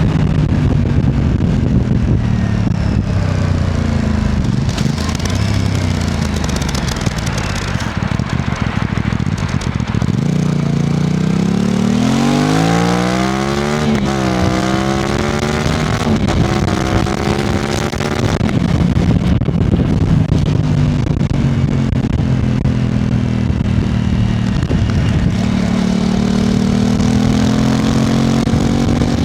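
Aprilia RS660 Extrema's parallel-twin engine under way. It runs steadily, then about ten seconds in it revs up with a sharp drop in pitch at about fourteen seconds, like an upshift, settles, and builds again near the end, over steady wind and road noise.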